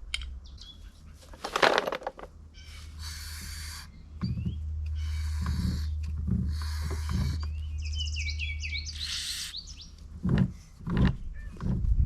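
Aerosol WD-40 spray can hissing in four short bursts of about a second each, with a few low knocks between them. Birds chirp around the middle of this.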